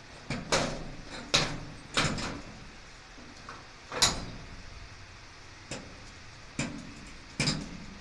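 Irregular metal clanks and knocks from garage door spring and track hardware being handled while the spring hook is fitted to its bracket: about eight sharp knocks, the loudest about four seconds in.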